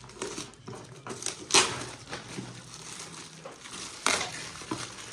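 Shiny metallic gift-wrap paper being torn open and crumpled by hand: irregular crackling rustles, with two louder crackles about one and a half and four seconds in.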